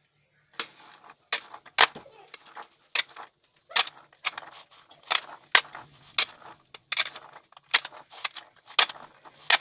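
A steel spoon clinking and scraping against a ceramic bowl as a chickpea and potato salad is tossed, in irregular strokes about twice a second.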